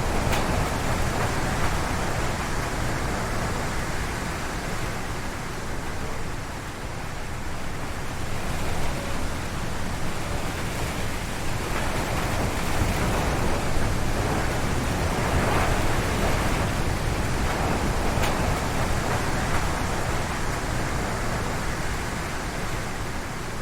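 Strong wind gusting through a forest, the trees tossing, a continuous rushing roar that swells and eases. It dips about a quarter of the way in and surges again through the middle.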